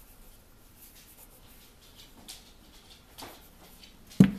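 Agate stones being handled on a cloth: faint rustling and a few light taps, then one sharp knock near the end.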